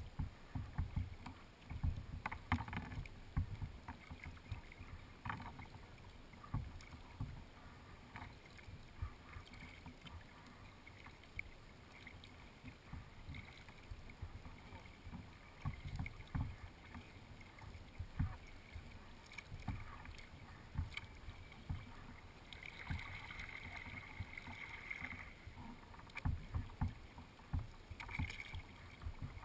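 Lake water lapping and knocking against the hull of a kayak under way, picked up by a camera on its deck: irregular low knocks over a faint hiss, with a brighter splashing stretch a little after two-thirds of the way through.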